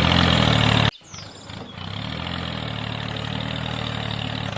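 Small engine running steadily with an even pulsing. It cuts off abruptly just under a second in, then carries on more quietly.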